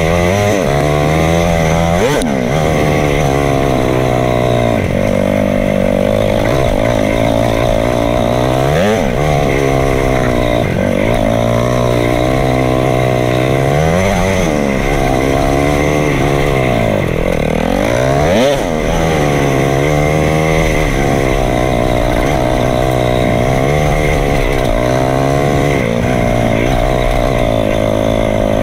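KTM 500 EXC-F dirt bike's single-cylinder four-stroke engine running hard under load, its pitch rising and falling with the throttle through the ride. A few sharp rev swings come through, about two, nine and eighteen seconds in.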